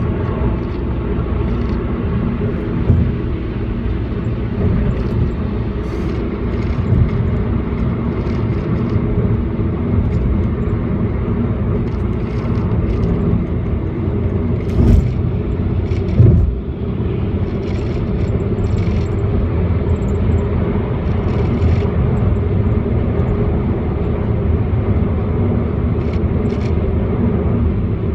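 Volkswagen Passat running with a steady drone, the strange noise its owner is recording. A few sharper knocks stand out, one early and two close together past the middle.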